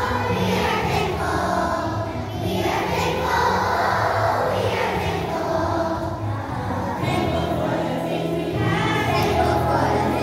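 A large group of young children singing together in unison, over a musical accompaniment with steady low bass notes.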